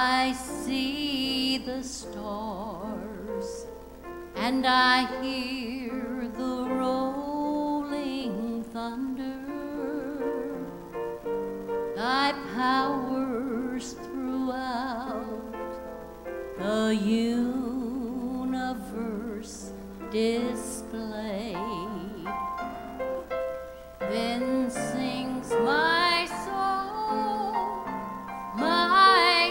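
A woman singing a slow song with vibrato, accompanied by a grand piano.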